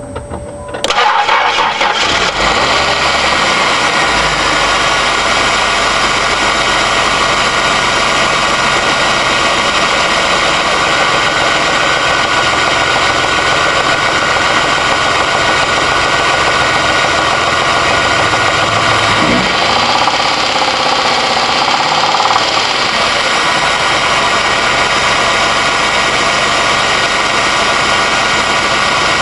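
Car engine cranked and catching about a second in, then running steadily with a knock that the owner suspects is rod knock.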